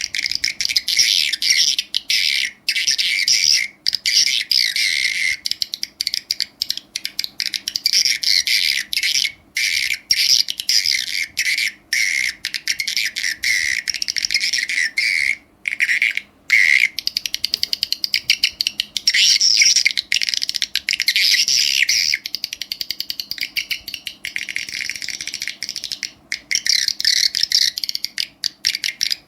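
Recorded swiftlet calls played back through an amplifier and speaker: a dense, unbroken stream of rapid high-pitched chirps and twitters, broken only by short gaps.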